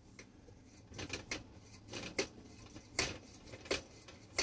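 Hand pump of a Petromax 829 kerosene lantern being worked to pressurize the fuel fount: a series of short clicking strokes, about one to two a second.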